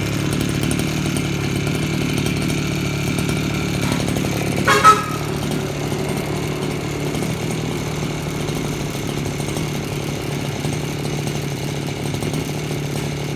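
Echo SRM-311F two-stroke brush cutter engine running steadily. A brief, louder, higher-pitched sound cuts in about five seconds in.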